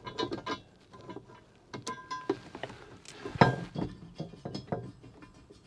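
Small metal hardware clinking and knocking as it is handled: bolts, a washer and a steel mounting bracket being turned and fitted, with short ringing clinks and one louder knock about three and a half seconds in.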